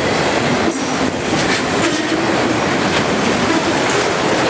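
A freight train of empty auto-rack cars rolling past at close range: a loud, steady rumble of steel wheels on rail, with a wheel knock now and then.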